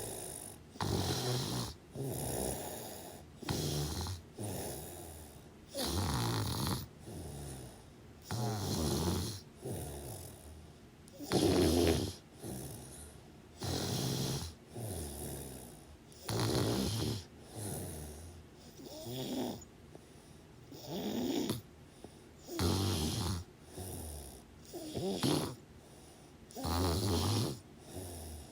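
Steady snoring. Each breath brings a louder, rattling snore and then a softer one, and the pair repeats about every two and a half seconds.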